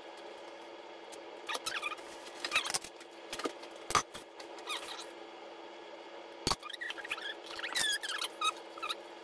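Wooden spoon stirring tomato juice in a plastic mixing bowl: irregular short squeaks and scrapes of the spoon against the bowl, with two sharp knocks, about four seconds in and again about six and a half seconds in, over a steady low hum.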